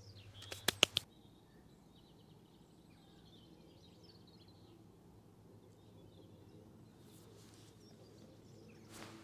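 A few sharp clicks from a fishing rod and reel being handled and set on the rests, about half a second in. Then faint birdsong over quiet lakeside ambience.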